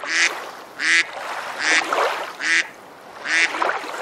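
Intro jingle with a steady slow beat: a bright, sharp chop lands about every 0.8 seconds, each with a short low note beneath it.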